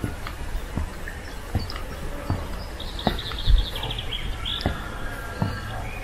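Footsteps climbing wooden stairs, a dull thud about every three-quarters of a second. A small songbird sings a short trill about three seconds in, with other faint chirps around it.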